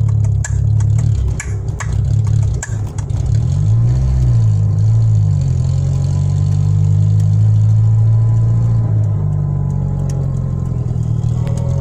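A Ford Escort Mk5 car's engine running while driving, with the steady drone rising and falling in pitch about four seconds in. Sharp knocks come in the first three seconds.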